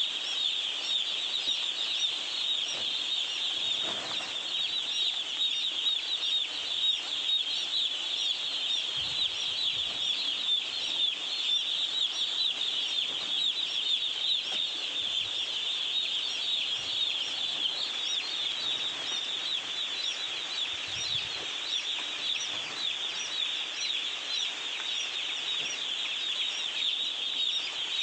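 Hundreds of day-old chicks peeping all at once: a dense, steady chorus of high chirps.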